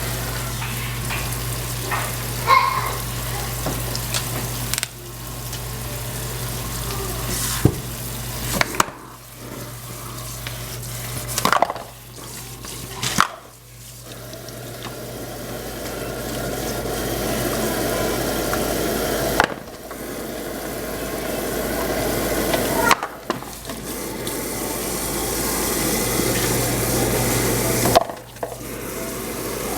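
Kitchen work sounds across several abrupt cuts: a steady hiss of cooking or running water, with a few short clinks of pots and utensils.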